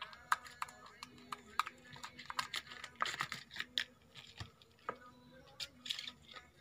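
Irregular light clicks and taps from a kitten pawing and batting at a small hard object on a vinyl floor, several a second at times, with faint background voices.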